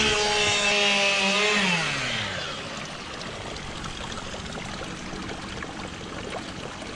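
A small motor runs at a steady pitch, then winds down and stops about two seconds in, leaving a steady hiss.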